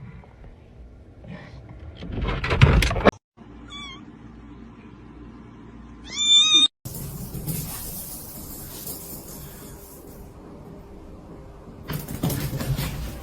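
Domestic cat meowing: a couple of short meows, the second one rising, between loud bursts of noise.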